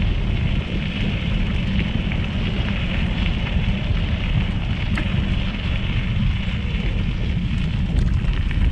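Bicycle rolling fast over a gravel trail: a steady rumble of wind on the microphone and tyre crunch, with a few sharp ticks of stones.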